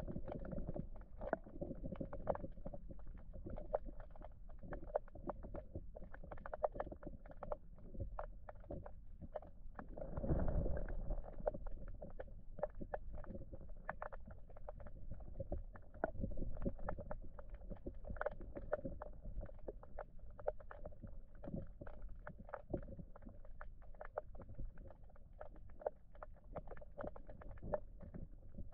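Muffled underwater sound of a flowing river: a low rumble with many small clicks and knocks, and a louder rumbling swell about ten seconds in.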